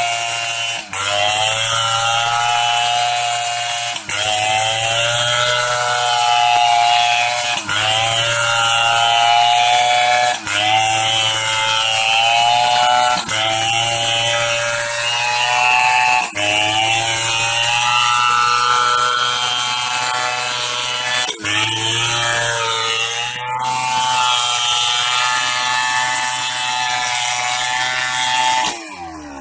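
STIHL 070 two-stroke chainsaw running at high revs while ripping a log, its pitch sagging under load and recovering again and again; it falls off near the end.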